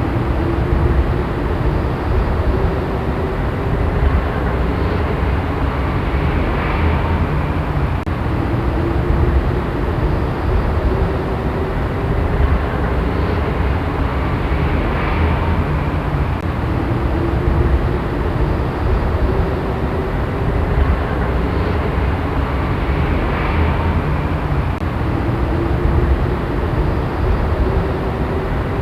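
City traffic ambience: a steady deep rumble, with a faint hum that slowly rises and falls in pitch.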